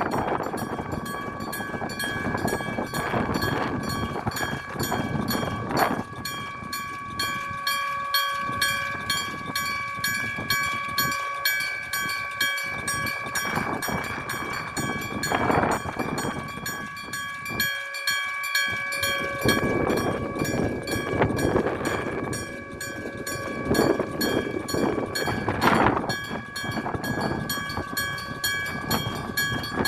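Electric-bell level-crossing alarm ringing fast and continuously, an even rapid striking on a bell, while a train runs over the crossing with its wheels clattering on the rails.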